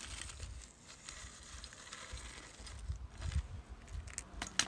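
Faint crunching and scraping of snow as a small Lego snow groomer is pushed by hand through snow over a hard surface, with low rumbling handling noise and a few sharp clicks near the end.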